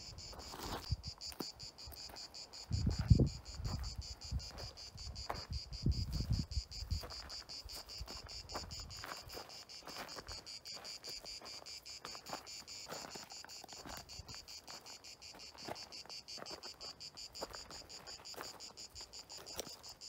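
Insects chirping in a steady, fast-pulsing high trill, with footsteps crunching on loose stones and a couple of louder low rumbles about three and six seconds in.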